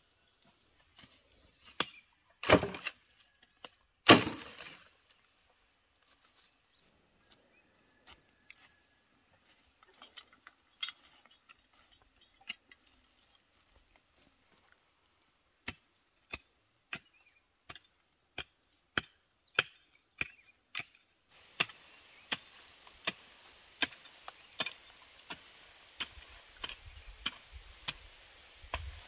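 Two loud knocks of bamboo poles being put down, then a hoe chopping into weedy soil in regular strokes, about one every two-thirds of a second.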